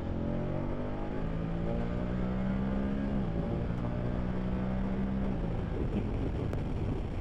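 BMW F850 GS Adventure's parallel-twin engine accelerating hard, the revs climbing for about three seconds. The revs dip briefly, then hold steady, and the engine note drops away about five seconds in.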